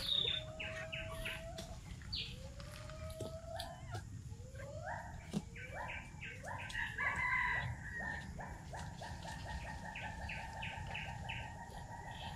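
A bird calling: a few drawn-out rising whistles, then short upswept notes that come faster and faster and run into a rapid, even trill for the last few seconds. Fainter high chirps sound over it.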